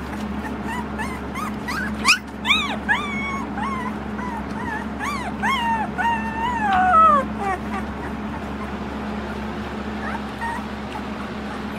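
Newborn Samoyed puppies whining and yelping in a string of short, high cries that rise and fall, with one longer falling whine about seven seconds in; the cries thin out after that. The whining is typical of hungry puppies just before feeding time, as the owner remembers it.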